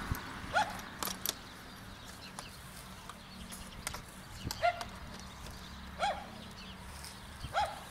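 A dog barking: about four single barks at uneven intervals, each short and rising then falling in pitch.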